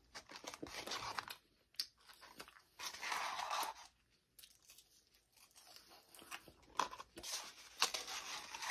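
Someone eating French fries: chewing and crunching, with a few bursts of paper rustling as fries are taken from a cup.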